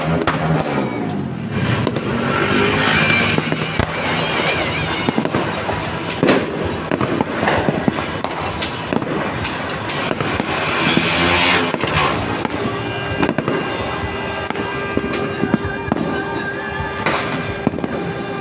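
Fireworks going off in quick, irregular succession: many sharp bangs and crackles overlapping throughout.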